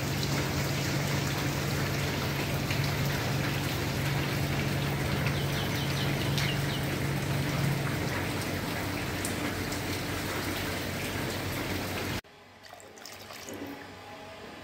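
Steady rain falling, a dense even hiss, with a low steady hum beneath it for the first eight seconds. It cuts off abruptly about twelve seconds in, leaving a much quieter room with a few faint ticks.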